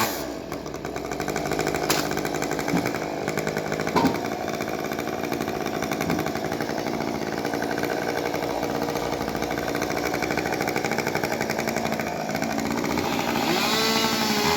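Two-stroke chainsaw engine running steadily, with a couple of sharp knocks a few seconds in, then revving up and down near the end.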